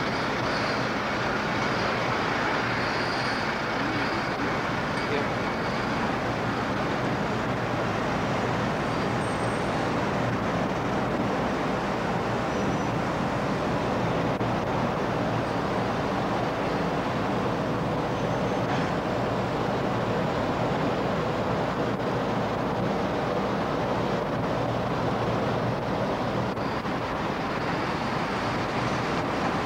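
A ferry under way: a steady low engine hum beneath an even rushing noise that does not change.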